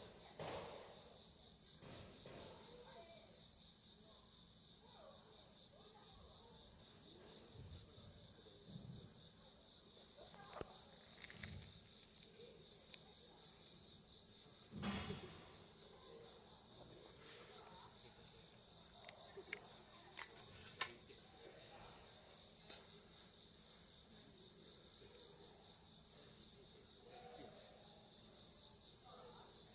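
Crickets trilling without a break in a steady, high-pitched chorus, with a few faint clicks and low knocks here and there.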